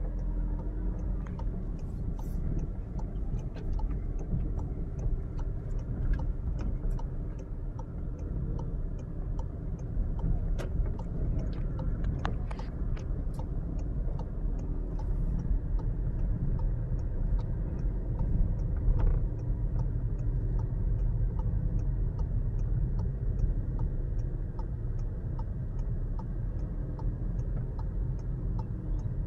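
Inside a car's cabin, low engine and road rumble as it drives slowly, with a fast, even ticking running alongside and a few scattered knocks.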